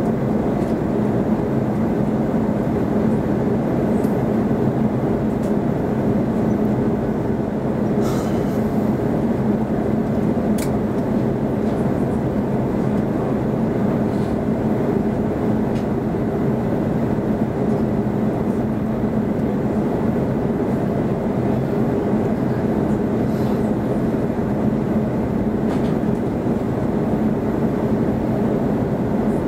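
Steady cabin noise inside an Airbus A340-300 on descent: an even rush of airflow with a steady low hum from its CFM56 turbofan engines. A couple of faint clicks about a third of the way in.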